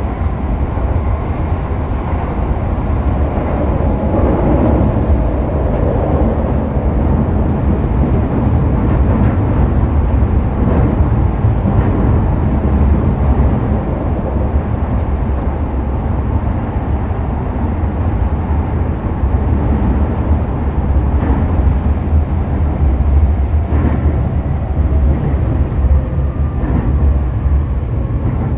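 Electric commuter train on the Keio–Toei Shinjuku Line through service running steadily, heard from inside the carriage: a continuous low rumble of wheels on rail and running gear, without stopping.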